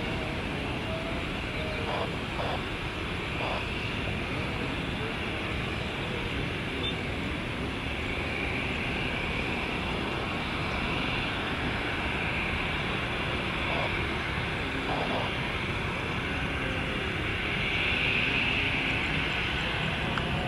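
Twin jet engines of an Airbus A320-family airliner at takeoff power through the takeoff roll and liftoff: a steady rushing jet noise with a hissing upper band, growing louder near the end as the aircraft climbs out.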